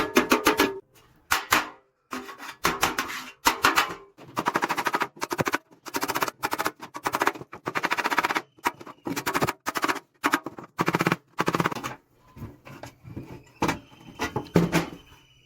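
Short bouts of rapid, repeated scraping or rattling strokes from hand work on metal, one bout after another with brief pauses between.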